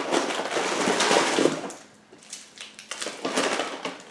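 Wrapping paper and snack packaging rustling and crinkling as hands dig down through a subscription box, loud for about a second and a half, then settling into scattered light crackles.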